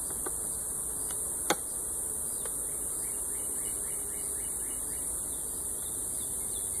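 Honeybees buzzing around an opened hive over a steady high-pitched hiss, with one sharp knock about a second and a half in.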